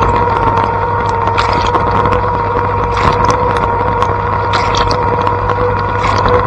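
Blanco dishwasher in its wash cycle: the circulation pump runs with a steady hum and a high whine while water sprays from the spinning spray arms, splashing with irregular ticks against the tub.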